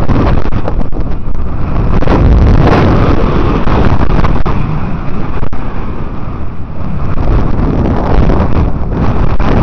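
Wind buffeting a helmet-mounted camera's microphone while cycling: a loud, steady rush of noise, heaviest in the low end, that swells and dips but never stops.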